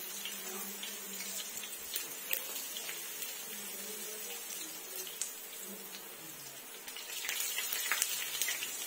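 Malpua batter sizzling and crackling as it fries in hot ghee in a wide pan, a steady hiss with many small pops, growing louder near the end.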